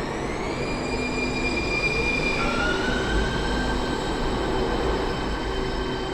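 Muni light-rail train in the underground station: a high whine that rises in pitch in the first moment and steps up again about two and a half seconds in, over a steady low rumble.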